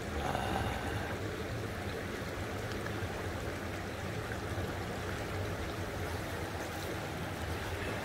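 Shallow mountain stream running over sand and pebbles: a steady, even wash of flowing water with a low steady rumble underneath.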